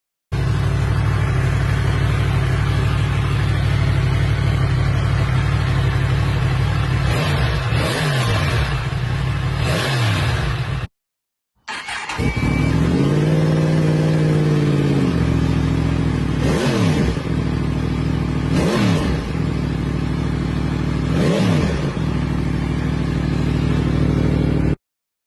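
Yamaha MT-10's crossplane inline-four running through a Scorpion Red Power slip-on exhaust, a steady engine note with one rev that rises, holds and falls, and several short sweeps up and down in pitch. The sound breaks off briefly about eleven seconds in.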